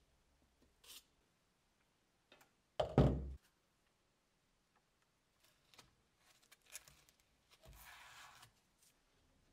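A heavy thump about three seconds in, then faint clicks and a short rasp as a hook-and-loop sanding disc is pressed and rubbed flat onto an orbital sander's pad.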